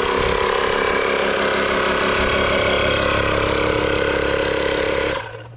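Air compressor running steadily while inflating a motorcycle tire with an inner tube, then shut off suddenly near the end once the tire reaches about 60 PSI, well over its rated pressure.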